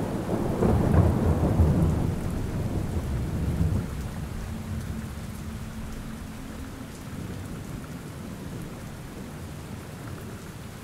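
A low thunder rumble over steady rain, dying away about four seconds in and leaving the rain alone.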